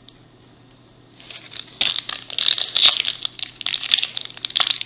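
Wrapper of a 2021 Topps Opening Day baseball card pack crinkling as hands handle it to open it. It starts about a second in and becomes loud and continuous after about two seconds.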